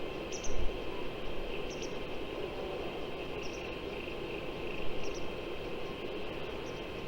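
Outdoor ambience on a windy day: a steady hiss with a couple of low wind buffets on the microphone, one just after the start and one near five seconds in. A short high double chirp repeats about every second and a half.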